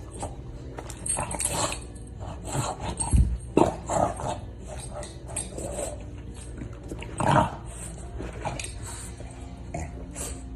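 A dog making a series of short, irregular sounds, the loudest about three and a half seconds in and again at about seven seconds.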